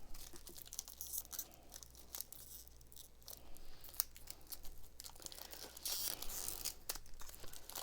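Faint crinkling and rustling of foil booster-pack wrappers and card packaging being handled, with small clicks and a denser burst of crinkling about six seconds in.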